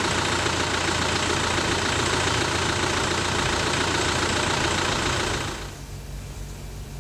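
A motor running steadily with a constant low hum and a dense, even noise over it. It cuts off about five and a half seconds in, leaving quieter room tone.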